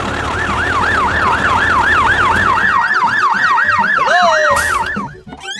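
Emergency siren in a fast yelp, its pitch rising and falling about four times a second over a low rumble. It cuts off about five seconds in.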